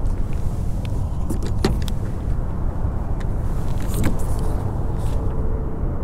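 A steady low rumble throughout, with sharp knocks and clicks of fishing gear about a second and a half in and again about four seconds in, as a rod is pulled from its holder on the boat.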